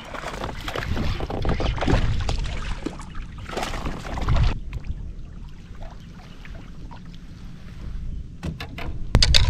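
Water splashing and kayak handling noise as a small largemouth bass is reeled in and landed beside a kayak, busiest in the first half. Sharp clicks and a louder low rumble of handling come near the end.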